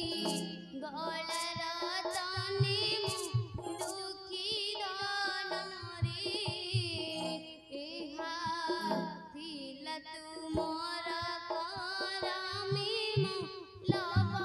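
A high voice singing a devotional stage song with wavering, ornamented melodic lines in phrases, over a drum accompaniment.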